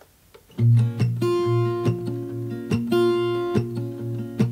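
Background music with strummed guitar, starting abruptly about half a second in with a steady rhythm.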